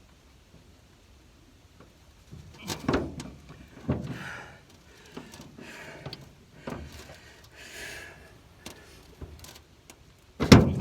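Scattered clanks and knocks of metal tools being handled while working at a stripped Torx bed bolt, with short scraping sounds between them and one sharp, loud knock near the end.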